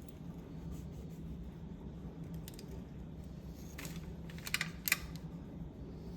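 A few short light clicks and taps, the two sharpest about half a second apart near the middle, over a steady low hum.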